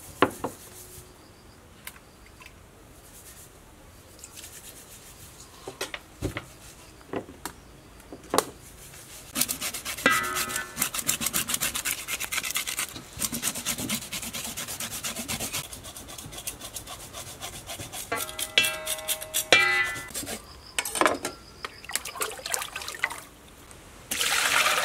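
A knife scraping the scales off a whole fish: rapid rasping strokes in bursts, starting about ten seconds in, with a few light knocks before them.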